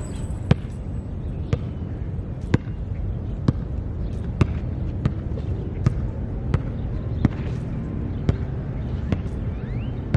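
Basketball being dribbled on a hard court, a sharp bounce about once a second, over steady low background noise.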